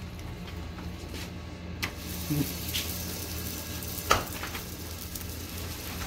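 Parotta dough sizzling on a hot flat tawa griddle over a steady low hum, with a few sharp knocks, the loudest about four seconds in.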